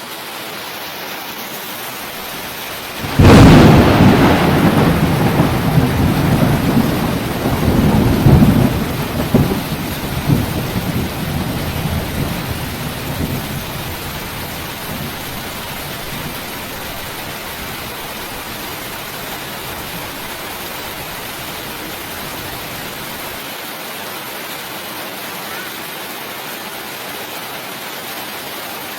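Steady rain with a thunderclap that breaks suddenly about three seconds in and rolls on in rumbling swells, fading back into the rain over about ten seconds.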